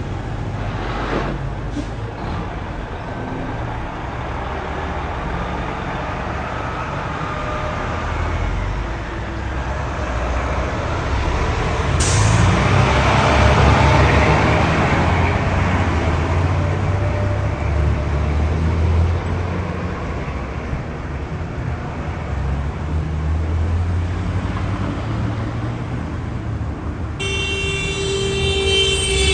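Car driving, a steady low engine and road rumble that grows louder about twelve seconds in. A horn sounds near the end.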